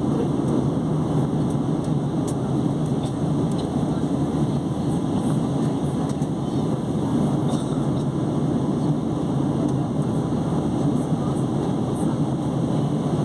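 Steady low roar of an airliner's jet engines during takeoff, holding an even level throughout.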